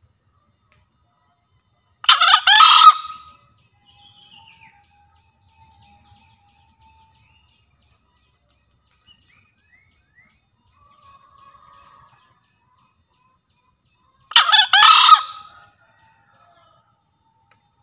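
Male green junglefowl crowing twice, about twelve seconds apart. Each crow is a short, hoarse call lasting about a second.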